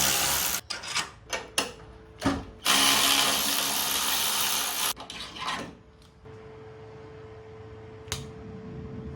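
Handheld power tool running in bursts, undoing the strut bar's mounting nuts: one long run at the start, a few short trigger pulls, then a second long run of about two seconds, after which only a faint steady hum remains.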